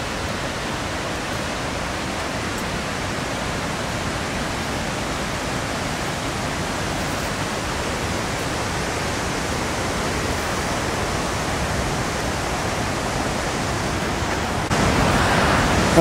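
Steady rush of water from a waterfall, a continuous even hiss that gets a little louder near the end.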